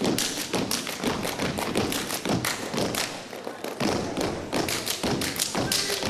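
A step team stepping: fast, synchronized stomps on the stage floor with body percussion, a dense rhythmic run of sharp hits.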